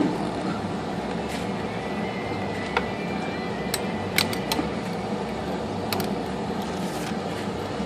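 Several short, sharp metallic clicks and taps of typewriter parts being worked loose, as a spring and shaft assembly are freed from the outer cam inside an IBM Selectric, over a steady background hum.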